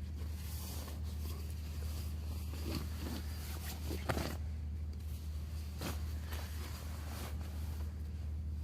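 A few short scratchy rustles, about 3 and 4 seconds in and again near 6 seconds, over a steady low rumble.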